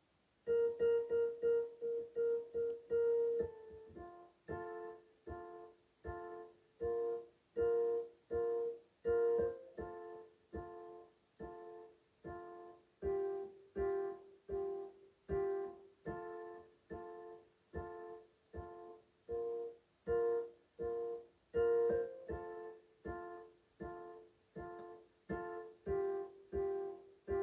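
Electronic keyboard playing with a piano sound. After a brief silence it starts with quick repeated notes for about three seconds, then settles into a steady pattern of short chords about twice a second.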